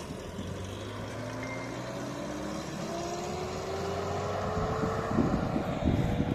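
Pickup truck driving past on the road, its engine rising steadily in pitch as it accelerates. A rough crackling noise comes in near the end.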